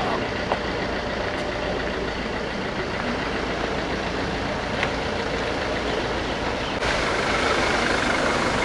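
Steady vehicle engine and traffic noise heard from inside a car creeping through a traffic jam. It grows suddenly louder about seven seconds in, as a Force Traveller van draws up close alongside.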